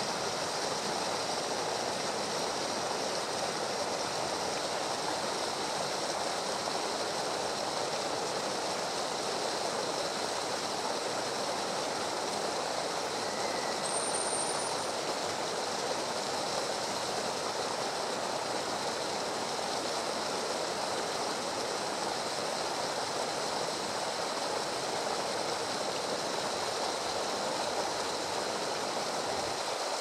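Steady rush of flowing stream water, even and unbroken, with one brief high, thin chirp about halfway through.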